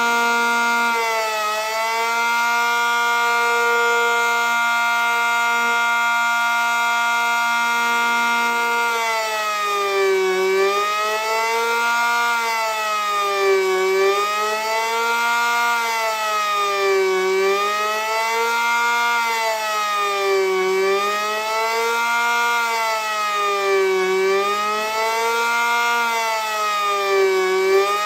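ACA Cyclone 125 siren sounding a steady tone rich in overtones, with a brief dip in pitch early on. About nine seconds in it switches to a slow wail, its pitch falling and rising about every three and a half seconds.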